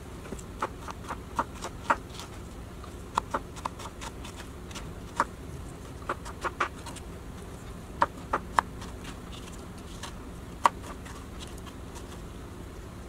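Kitchen knife slicing strawberries on a cutting board: a string of irregular sharp taps as the blade meets the board, stopping about eleven seconds in, over a steady faint hiss.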